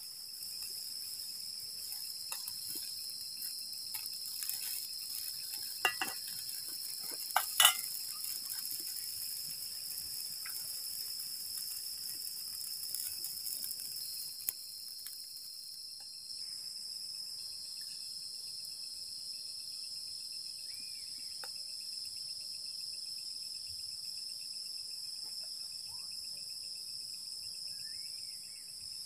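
Night insects, crickets, chirring steadily in a high, even chorus. A few sharp clicks and knocks come in the first half, the loudest about seven and a half seconds in.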